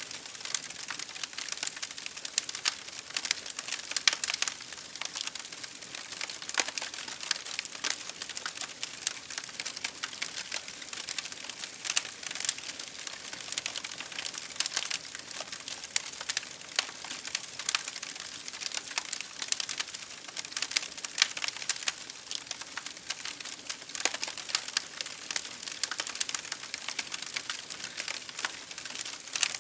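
Fire crackling steadily: a dense run of small sharp pops and snaps over a soft hiss, with an occasional louder crack.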